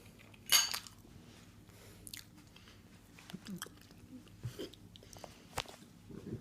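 A person chewing a mouthful of scrambled eggs with mayonnaise: scattered soft, wet mouth clicks and smacks, one louder about half a second in.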